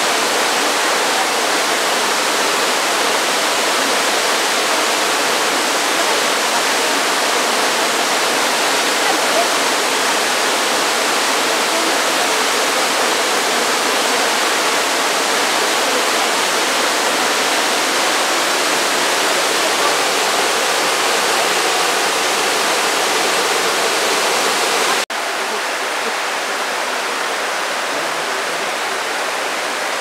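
Jōren Falls, a tall waterfall plunging into its pool, making a steady, even rush of falling water. About 25 seconds in, the sound cuts off abruptly and continues as a quieter, thinner rush of water.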